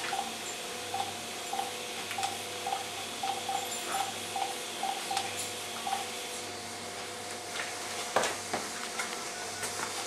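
Mobile phone keypad beeps as a number is dialled: about a dozen short beeps in the first six seconds, over a steady background hum. A single sharp knock comes about eight seconds in.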